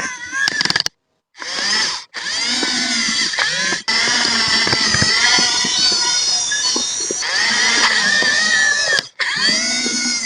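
Electric drive motors and gearboxes of a radio-controlled bulldozer whining under load, several pitched whines rising and falling together. The sound cuts out abruptly about a second in and again near the end.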